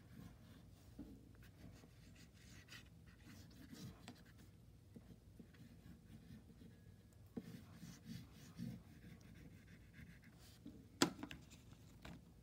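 Oil pastel stick rubbing across paper in faint, repeated short strokes. A sharp click comes near the end.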